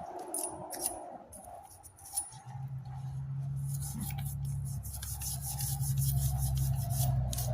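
Scrubbing and rubbing on a turbocharger part, cleaning off carbon residue, in quick repeated strokes. About two and a half seconds in, a steady low hum starts and keeps running.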